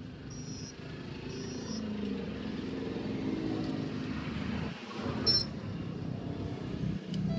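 Motor vehicle engine running with a low, uneven rumble, and a brief sharp high-pitched sound about five seconds in.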